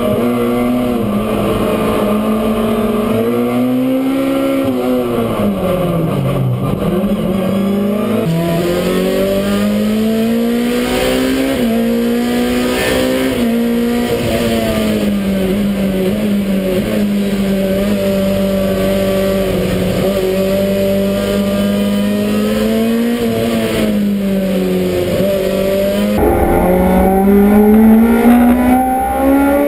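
Touring race car engines heard from inside the cockpit at racing speed. The engine note holds high with rises and falls through shifts and braking, dipping deeply and climbing again about five seconds in. The sound changes abruptly twice as the view switches to another car, and is louder near the end.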